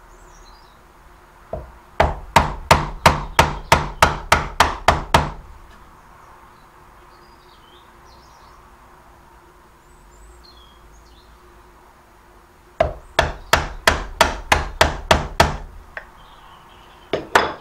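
A hammer striking a chisel held upright in pine, chopping out the waste of a dovetail socket. The blows come in two runs of quick, even strikes, about four a second, with a pause of several seconds between them.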